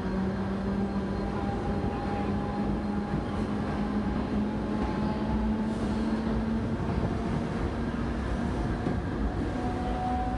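Central Railway Mumbai suburban electric train (EMU) running, a continuous rumble with a steady electric motor hum that rises slightly in pitch.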